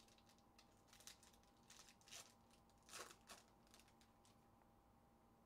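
Faint crinkling of a foil trading-card pack wrapper being handled and torn open by hand: a string of short rustles, the loudest about three seconds in, stopping after about four and a half seconds.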